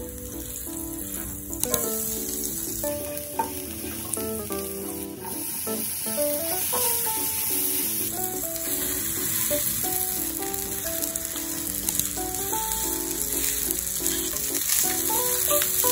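Garlic, sliced sausage and rice sizzling as they fry in oil in a non-stick frying pan, stirred with a soft spatula, with a few light knocks.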